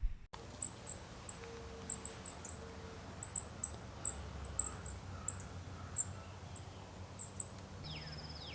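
A small animal's short, very high chirps, irregular at about two or three a second, over a low steady hum.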